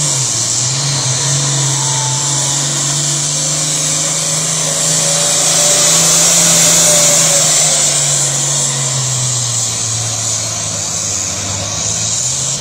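International Harvester pulling tractor's diesel engine running flat out under load as it drags the sled, a steady heavy drone. Its note sags a little over the last few seconds.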